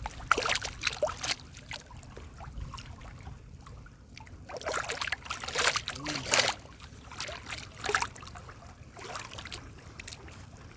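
Water splashing and sloshing against a boat, in irregular bursts: several close together about half a second in, a longer run around five to six seconds, and more near eight and ten seconds. A low steady rumble runs underneath.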